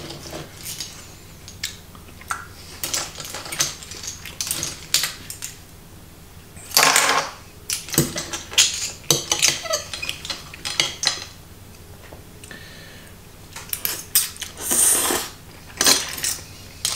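Metal fork and spoon clinking and scraping on a plate heaped with clams in their shells, with scattered clicks throughout and louder clattering spells about seven and fifteen seconds in.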